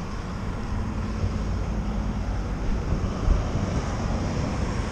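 Wind buffeting the microphone, with a low steady machine hum underneath.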